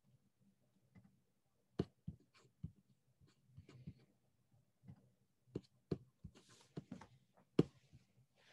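Faint, irregular clicks and taps of a computer keyboard and mouse being worked, with a few sharper knocks, the loudest about two seconds in and near the end, over a low steady hum.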